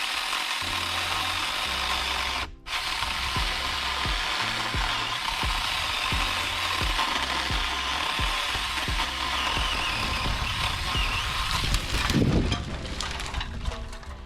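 Battery-powered Saker mini chainsaw running and cutting branches, with a steady buzz. It stops briefly about two and a half seconds in, then runs again until near the end.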